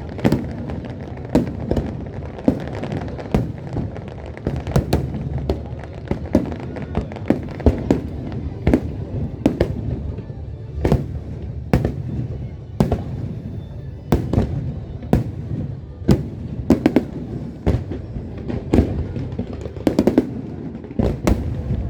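Aerial fireworks bursting in quick, irregular succession, a sharp bang every half second to second, some with crackling.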